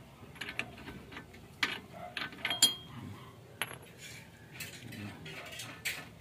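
Ratchet wrench clicking as the socket backs off a rear wheel hub lock nut, with metal-on-metal clinks and one sharp, ringing metallic clink about two and a half seconds in.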